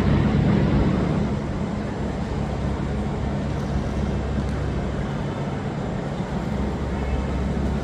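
Eurostar high-speed train giving off a steady low hum, with a wash of noise over it, easing slightly after about a second.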